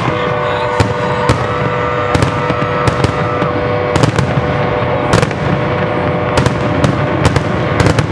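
Fireworks bursting overhead: more than a dozen sharp bangs at an irregular pace. Boat horns sound steady tones underneath.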